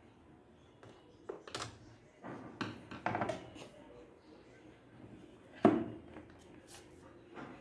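A handful of scattered clicks and knocks of hard objects being handled, with a sharp knock a little over five seconds in.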